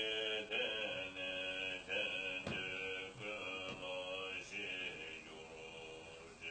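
A man's voice chanting a Buddhist prayer in short phrases on a near-steady pitch, growing quieter near the end.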